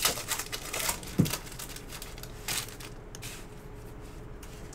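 Foil wrapper of a Topps Stadium Club baseball card pack being torn open and crinkled, with a single thump about a second in.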